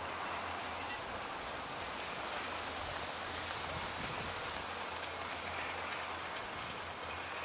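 Steady, even outdoor stadium background noise like a soft hiss, with no distinct events.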